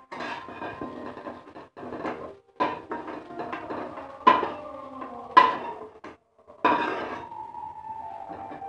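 Metal spatula scraping and knocking against a kadai as fried cauliflower is scooped out of the pan. There are five or so sharp clanks, each with a short ring, and the loudest come about four and five and a half seconds in.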